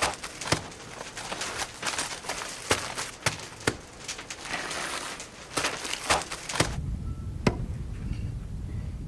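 Plastic bags of salt being handled and stacked: irregular rustling and scraping with many sharp clicks and knocks. After about six and a half seconds this gives way to a low steady rumble with a single click.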